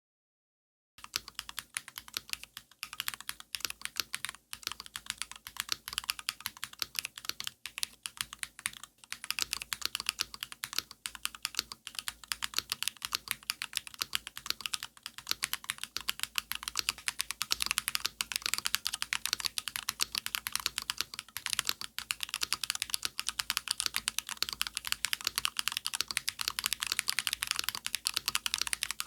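Mechanical keyboard fitted with SW x Haimu MP (metal pole) tactile switches, an aluminium plate and Hammerworks CRP keycaps, being typed on in a steady stream of fast keystrokes. The typing starts about a second in after a moment of silence.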